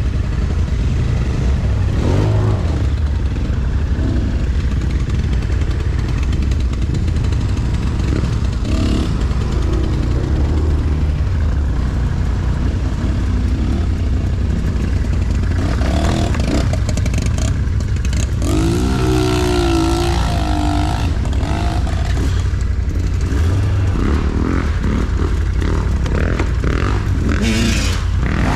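Off-road engines running close by: a steady low rumble of quad bikes, with dirt bike engines revving over it. There is one wavering rev about two-thirds of the way through.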